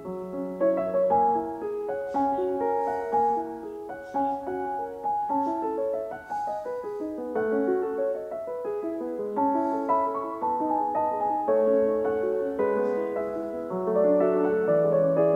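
Background piano music: a calm flow of notes and chords.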